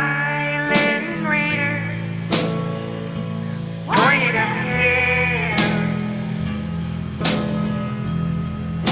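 Intro music: a blues-rock song with guitar, a steady drum beat and a singing voice.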